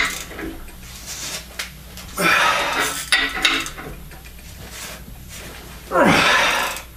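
Steel tools clinking against the nuts and threaded rods of a home-made bolt-driven punch press. Twice, around two seconds in and again near the end, comes a loud exhale that falls in pitch. This is the worker, out of breath from wrenching the punch through half-inch plate.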